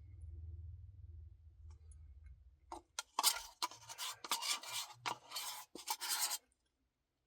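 A low rumble, then a few seconds of quick, irregular scraping and rubbing noises that stop suddenly.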